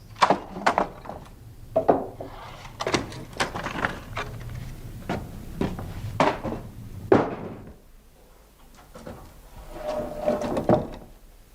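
Irregular wooden knocks and thuds, about a dozen spread unevenly over seven seconds, then a short squeaky creak near the end followed by one more knock.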